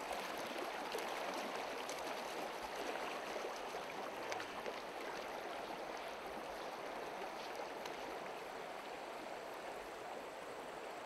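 Shallow river water running over stones and cobbles at the edge of the stream: a steady wash of flowing water.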